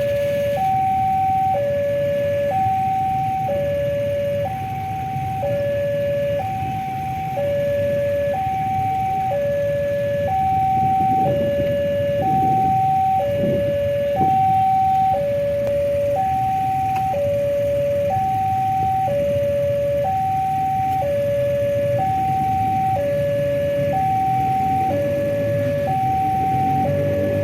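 Electronic railway level-crossing warning alarm sounding a steady two-tone hi-lo signal. It switches between the two pitches about once a second, over a continuous low rumble.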